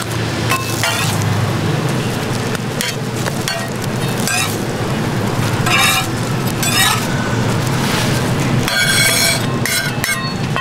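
Metal spatula scraping and tapping on a flat steel griddle as toast sandwiches are stacked and slid along, over a steady low rumble of background noise.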